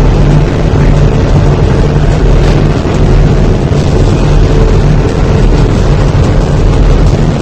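A loud, continuous rumbling roar with a steady low hum underneath, unbroken throughout.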